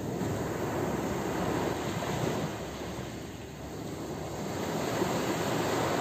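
Ocean waves washing onto a shore: a steady rush of surf that swells, eases off in the middle, and swells again.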